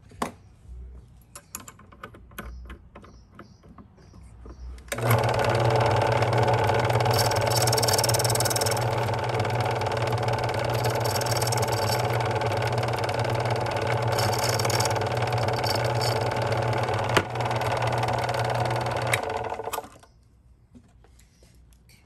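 Belt-driven key-cutting machine switched on about five seconds in and running steadily for some fifteen seconds, its rotary milling cutter trimming down the first lever cut on the bit of a brass barrel key. A higher grinding hiss swells three times as the cutter bites, and the machine is switched off and runs down near the end. Light clicks come before it starts as the key is set in the vise.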